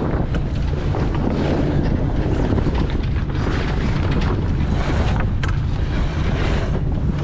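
Wind buffeting the microphone aboard a moving sailboat: a steady, loud rushing with a deep rumble and a few brief knocks.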